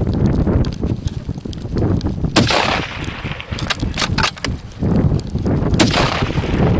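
Two rifle shots about three and a half seconds apart, each followed by a ringing echo, with a few lighter clicks between them, over steady wind rumble on the microphone.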